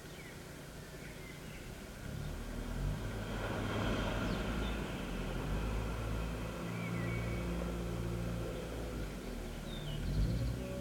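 Wheel loader's diesel engine working, coming up about two seconds in and rising and falling with the load. Birds chirp faintly in short calls.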